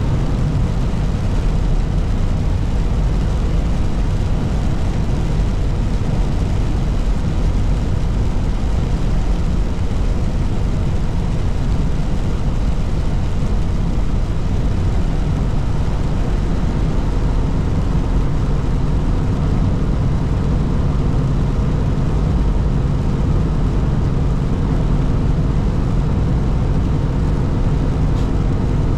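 Steady engine drone and road noise heard inside a truck's cab while it drives at highway speed.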